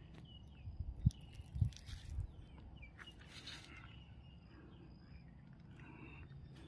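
Outdoor rural ambience with small birds chirping in short high calls, broken by a couple of dull knocks and rustles about a second in.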